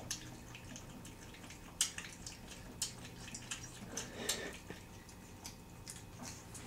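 Boston Terrier puppy feeding with her head in a stainless steel bowl: quiet, irregular small clicks and wet ticks from her mouth and the bowl, a few louder ones about two and three seconds in and a short cluster around four seconds.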